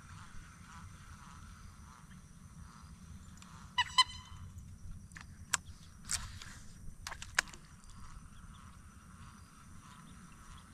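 Quiet outdoor ambience with a steady faint background of wildlife; about four seconds in, an animal gives a short double call, followed by a few sharp clicks.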